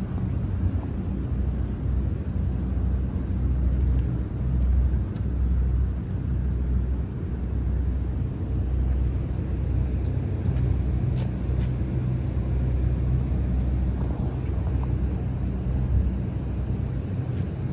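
Steady low hum of running machinery, a constant pitched drone with a few faint clicks over it.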